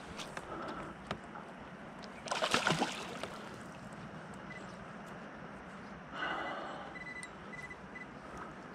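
Water splashing and sloshing as a hooked steelhead thrashes at the surface beside a kayak, with two louder bursts of splashing about two and a half and six seconds in.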